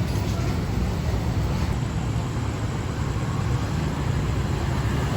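Steady low rumble of a diesel-hauled passenger train, with an even hiss above it.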